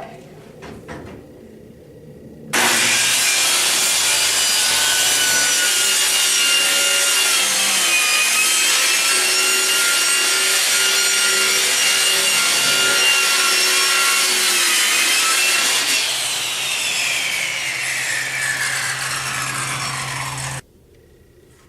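Electric power saw starts about two and a half seconds in and runs at a steady whine while cutting through a wooden board. It is then released and spins down, its pitch falling, until the sound cuts off suddenly near the end.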